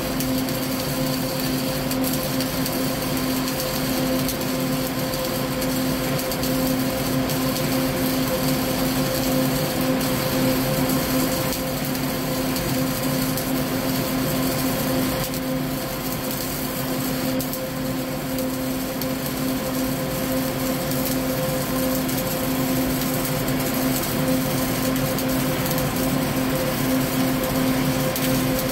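Flux-cored arc welding with CO2 shielding gas, vertical-up: a steady hissing arc with a constant hum underneath. The gun is held in the wrong position, the common beginner's mistake that leaves a poor bead.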